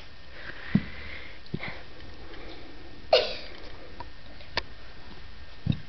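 Small dog sniffing quietly, with a few soft thumps, and one short whine that falls steeply in pitch about three seconds in.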